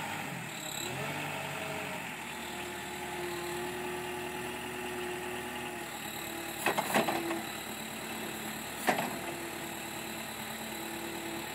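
Engine of a Princeton PiggyBack truck-mounted forklift running steadily as the machine drives, with two sharp knocks about seven and nine seconds in.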